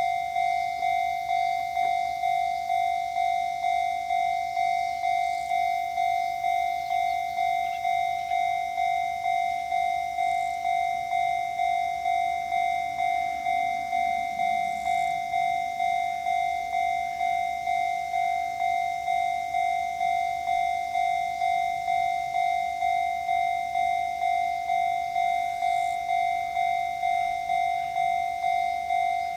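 Japanese railway level-crossing warning bell of the newer type, ringing steadily at about two dings a second, each ding a single bright tone.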